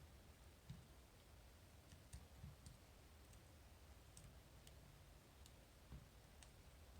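Faint, irregular clicks of a lock pick and tension wrench working the rotating pins of a Medeco Original lock, about a dozen in a few seconds.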